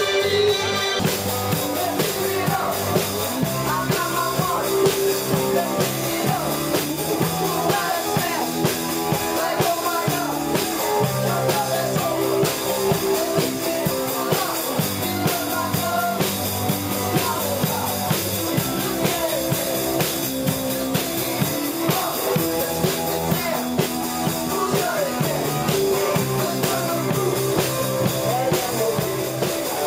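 Rock music: a drum kit keeps a steady beat under bass and electric guitar, with some singing.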